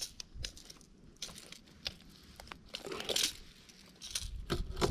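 Light scattered clicks and rustles of a caught snapper and a rattling lure being handled with a metal lip-grip while the lure is unhooked, with a short louder patch of rustling about three seconds in.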